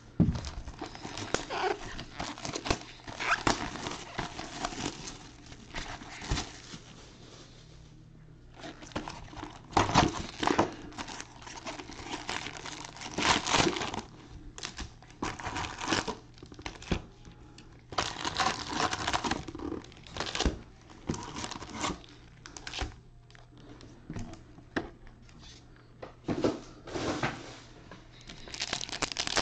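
Foil wrappers of Bowman baseball card packs crinkling as gloved hands pull the packs out of an opened hobby box and handle them, with some tearing. The crinkling comes in irregular bursts with short pauses.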